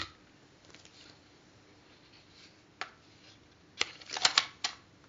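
Handling noise: a few short, sharp clicks and taps, one about three seconds in and a quick cluster of three or four near the end, over faint hiss.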